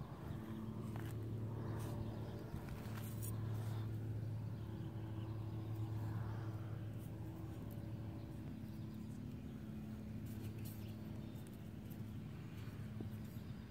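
A steady low mechanical hum, like a motor running, holding one pitch throughout with slight swells.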